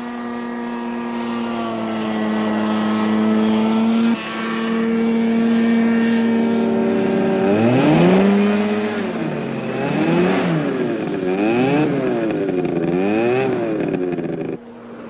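Pindair Skima 4 hovercraft engine running at a steady pitch, then revved up and down several times, about once a second, from about halfway through. The sound breaks off sharply near the end.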